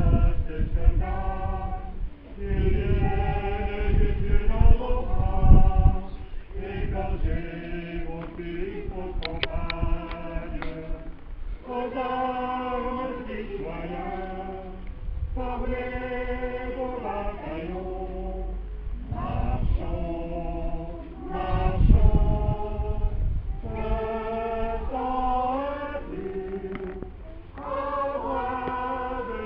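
A choir of voices singing together in held phrases, each note sustained for about a second. Low rumbles of wind on the microphone come in at the start and again about twenty seconds in.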